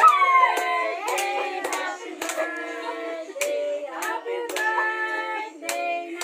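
People singing a birthday song, a child's voice among them, with hand claps keeping time at about two a second.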